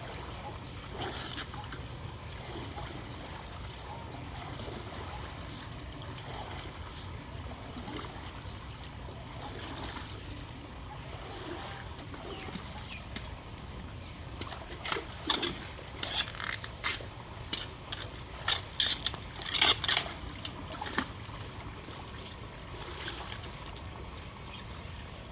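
Flood water running and trickling, with a run of sharp splashes about two-thirds of the way through.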